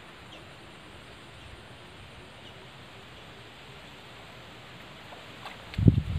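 Steady outdoor background hiss, then a sudden loud low thump with a few clicks just before it near the end.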